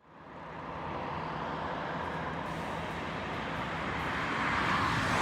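Steady outdoor street noise that fades in at the start and cuts off abruptly at the end.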